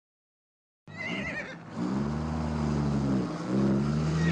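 A pony whinnies briefly about a second in, a short quavering call, then a truck's engine runs steadily, dipping once about three seconds in and picking up again.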